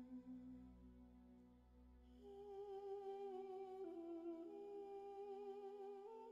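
Women's voices humming long held notes over a low held tone. About two seconds in, a higher voice comes in and steps between a few steady pitches.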